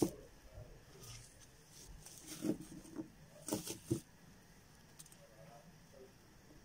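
Black plastic bin bag crinkling and rustling as a cloth is worked by hand inside it, in several short bursts, the loudest cluster about three and a half to four seconds in.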